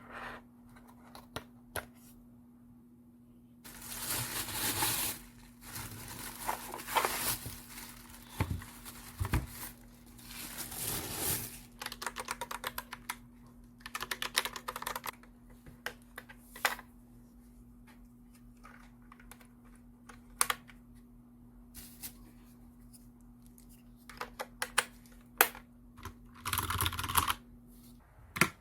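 Clicking of the keys on a Logitech POP Keys mechanical keyboard being pressed, in scattered taps and short runs. Longer stretches of rustling, tearing-like noise come from the packaging being handled: one in the first half and another shortly before the end. A faint steady hum sits underneath.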